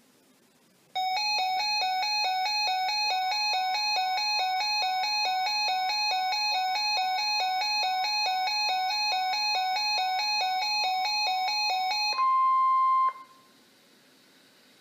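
Weather alert radio's electronic alarm beeping rapidly, about three buzzy beeps a second, with the NOAA Weather Radio warning alarm tone sounding steadily underneath. The beeping stops near the end, and the steady alert tone is left alone and loud for about a second before it cuts off.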